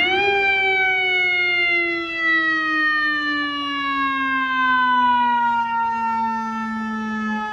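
An FDNY fire engine's mechanical siren, spun up just before and now winding down in one long, slowly falling wail with a rich, buzzy stack of overtones.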